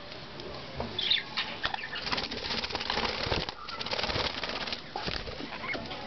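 Budgerigars flapping their wings in a fluttering flurry in the cage, with a few short chirps near the start.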